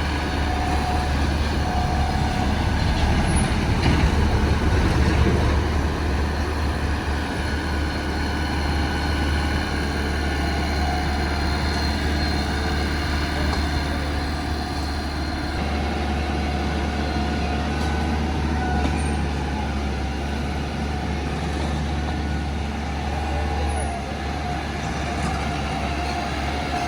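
Heavy diesel earthmoving machinery, most likely the Shantui bulldozer, running steadily under load with a deep drone and thin squeals that drift in pitch. It swells louder about four to five seconds in.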